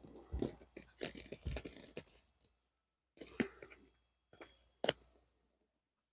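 Faux-leather vinyl upholstery being handled and pulled over a seat: intermittent rustling and small clicks in short bursts, with a sharper click near the end.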